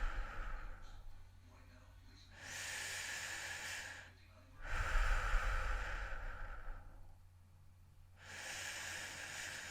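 A person breathing heavily and slowly, about two full breaths, each a louder breath of two seconds or so followed by a pause and a quieter breath.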